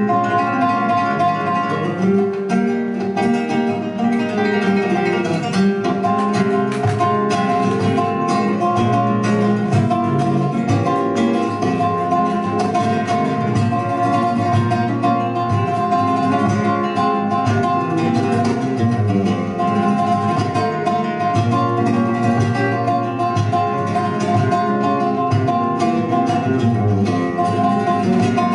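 Solo flamenco guitar played live, a continuous stream of plucked notes and chords with many sharp attacks.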